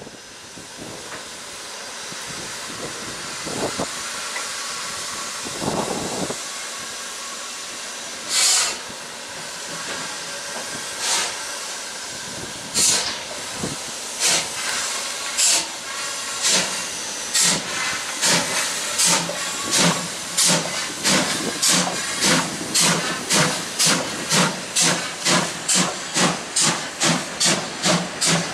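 Steam locomotive starting away: a steady hiss of steam, then exhaust chuffs that come a couple of seconds apart at first and quicken to about two a second as the engine gathers speed.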